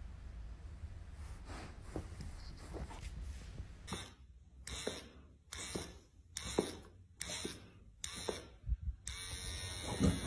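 Electric hair clippers buzzing in short bursts, switched on and off about seven times in a row, roughly every 0.7 s, starting about four seconds in.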